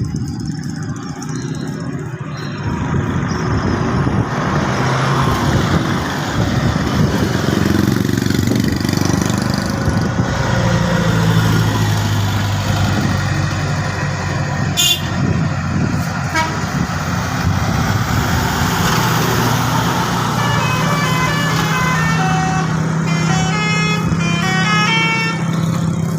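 A bus's diesel engine running close by, growing louder over the first few seconds. Near the end a telolet horn, a multi-tone musical bus air horn, plays a quick tune of stepped high notes for about five seconds.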